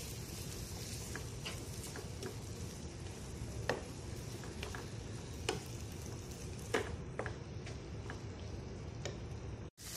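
Chicken chunks sizzling in a non-stick frying pan as a spatula stirs the spices through them, with scattered clicks and taps of the spatula against the pan. The sound cuts out for an instant near the end.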